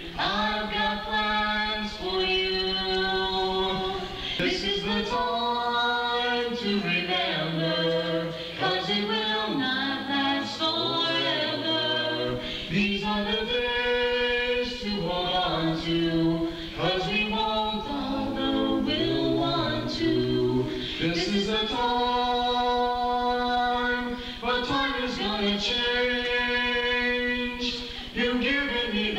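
Vocal duet: a young woman and a young man singing a slow song through hand-held microphones and a PA, with long held notes.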